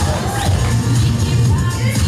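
Dance music with a strong, pulsing bass beat playing over a stage loudspeaker, with audience noise underneath.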